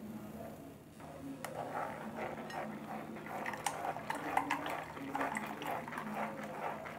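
Blended watermelon juice pouring and trickling through a stainless steel mesh strainer into a bowl, then a spatula stirring and scraping the pulp against the mesh, with many small irregular clicks and scrapes from about a second and a half in.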